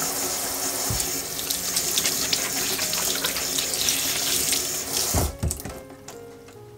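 Kitchen faucet's spray head running onto hands rinsing fruit in the sink, with a low knock about a second in; the water shuts off after about five seconds.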